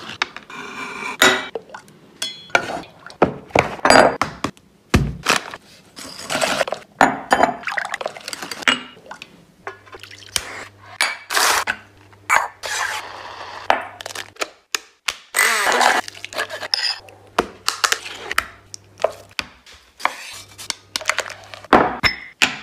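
Kitchen prep handling noises: a long run of short, sharp clicks, knocks and clinks from a cream pot, a metal bowl and a glass jar being opened, handled and set down on a worktop.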